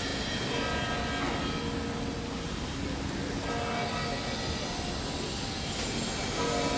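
Steady wind rumble buffeting the microphone over rain and a crowd on a wet square, with a few held tones coming and going about a second in and again near the end.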